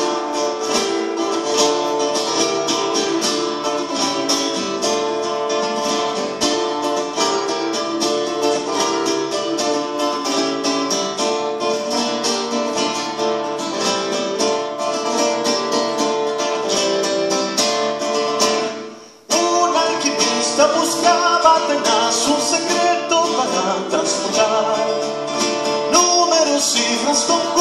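Acoustic classical-style guitar strummed rapidly in an instrumental break. The strumming stops for a moment about two-thirds of the way through, then comes back with a busier, more melodic pattern.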